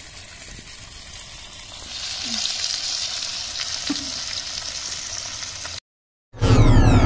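Pangas fish pieces sizzling as they fry in hot oil in a pan, the sizzle growing louder about two seconds in. Near the end it cuts off abruptly and music with falling tones starts.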